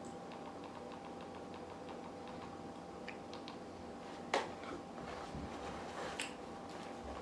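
Quiet room tone with a faint steady hum, broken by a few small clicks and one sharp click about four seconds in, with another just after six seconds.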